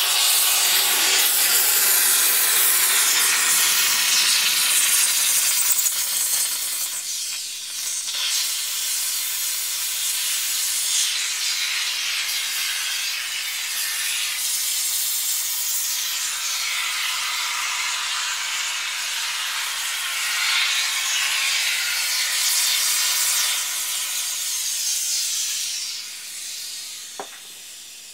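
Aerosol tire-repair sealant can discharging foam through its hose: a loud, steady hiss that wavers in strength and fades out near the end.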